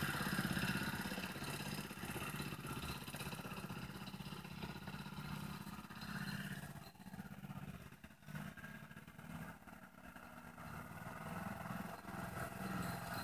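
Mini petrol-electric hybrid car's engine running with a steady low hum as it drives off. The hum fades about seven seconds in, then grows louder again near the end as the car comes back.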